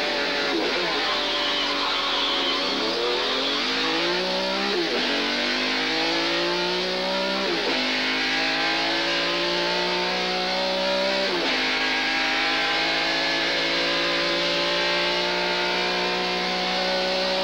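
A car engine accelerating through the gears. Its pitch climbs and then drops at each of four shifts, then holds nearly steady near the end.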